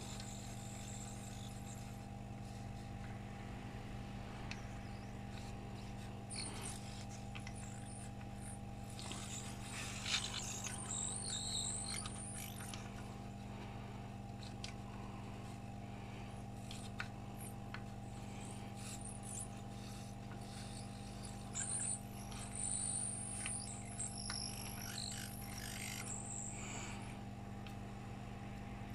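Steady electrical hum of bench equipment while two soldering irons heat solder on a laptop motherboard. Faint crackling comes with two short stretches of high-pitched sizzling, from flux and solder boiling under the iron tips.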